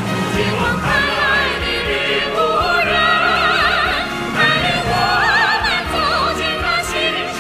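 Female voice singing long, high held notes with wide vibrato over orchestral accompaniment, in the style of a Chinese red song.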